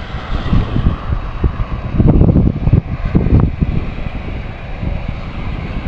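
Gusts of storm wind buffeting the microphone in an uneven low rumble, strongest about two seconds in, over a steady hiss of rain.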